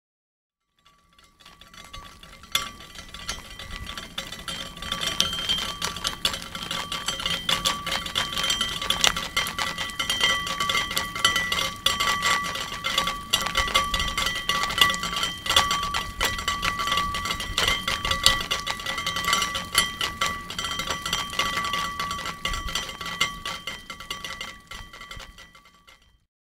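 Water making a dense, fast crackle of tiny clicks and pops, with a few steady ringing tones running through it; it fades in over the first couple of seconds and out near the end.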